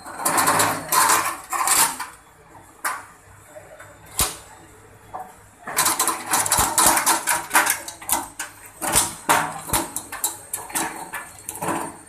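Coconut shell peeling machine: its spinning studded drum chips and rasps the hard shell off a coconut pressed against it by hand. This comes as rough, crackling bursts for about two seconds at the start and again for the last six or so seconds, with a quieter gap between. A steady hum from the drive motor runs underneath.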